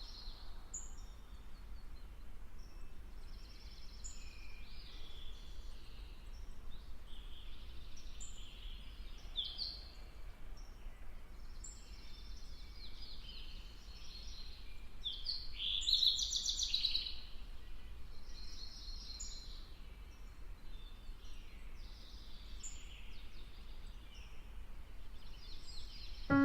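Several songbirds calling and singing, one after another, with one louder call about sixteen seconds in, over a faint low rumble.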